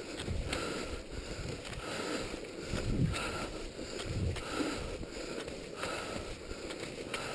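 Skate skis swishing over a packed snow trail in a steady rhythm, about three strokes every two seconds, with some wind rumble on the microphone.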